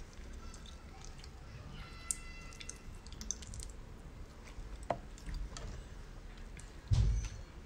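Close-up wet handling sounds of a small metal fork prying meat out of sea snail shells: light clicks of the fork against the shells and soft squishy sounds from the meat. There is a brief squeak a couple of seconds in and a dull low thump near the end, which is the loudest sound.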